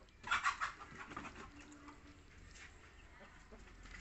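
A short burst of animal calls about half a second in, the loudest sound, followed by fainter scattered calls.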